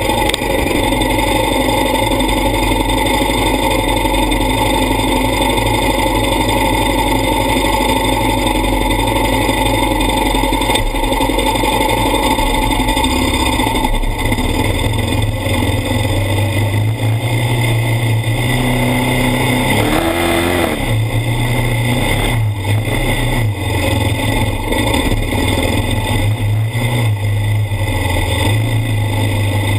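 ATV engine running steadily under load, with a brief rev up and back down about two-thirds of the way through.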